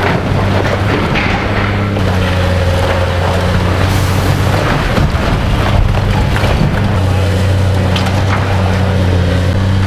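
Caterpillar excavator's diesel engine running steadily under load while its bucket tears down a brick wall, with crashes and clatter of falling brick and debris.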